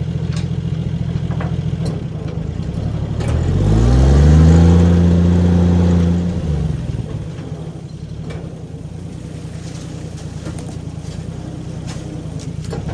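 Engine running at a steady idle, revved up about three seconds in, held high for about two seconds, then dropped back to idle.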